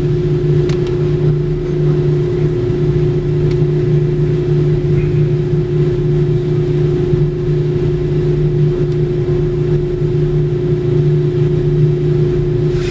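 Steady, unchanging low mechanical hum with two constant pitches, from running machinery in a quick-lube oil change bay.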